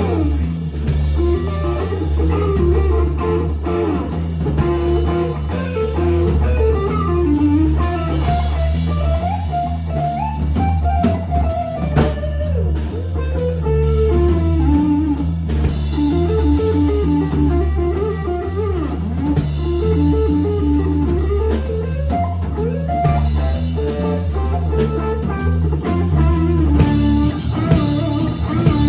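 A rock band playing live: a melodic electric guitar line over a drum kit and a heavy, steady low end, with a sharp crash accent about midway.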